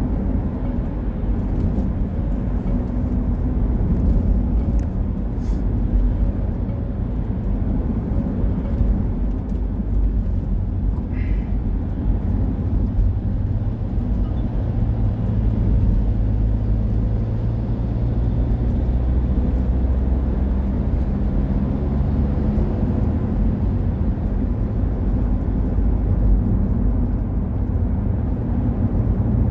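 A car driving along a road, recorded from inside the cabin: a steady rumble of engine and tyre noise with no let-up.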